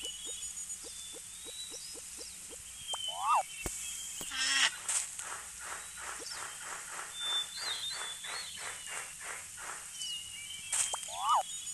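Birds chirping over an outdoor nature ambience, with a run of soft ticks early on and, a few seconds in, a rasping animal call repeated about three times a second for several seconds.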